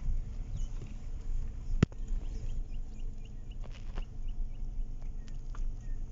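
Steady low rumble with a sharp click just before two seconds in. A small bird chirps a quick run of about six short notes just after the click.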